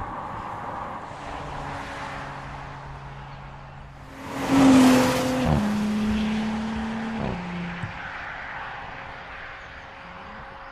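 Audi SQ5's turbocharged V6 petrol engine, heard as the car drives past on the road: the engine note and tyre rush build to a peak about four and a half seconds in, then the engine pitch drops in two steps as it pulls away and fades.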